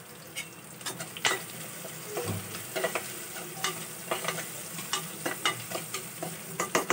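Sliced onions, curry leaves and green chillies sizzling in hot oil in an aluminium pressure cooker, stirred with a metal spatula that scrapes and clicks against the pot at irregular moments.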